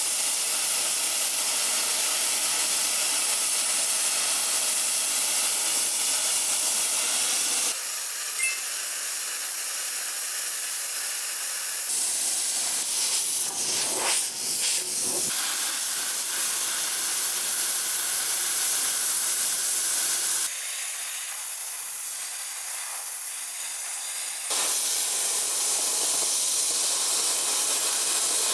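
Weldus CUT 45K-AIR plasma cutter cutting 12 mm steel plate, fed from an external air compressor: a steady loud hiss of the plasma arc and air jet. The hiss drops and comes back abruptly a few times.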